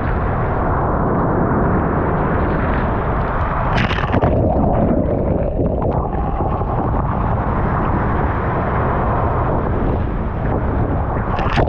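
Waves breaking on a pebble beach over a steady rumble of surf. One wave crashes about four seconds in, followed by a clatter of pebbles for a couple of seconds, and another wave crashes near the end.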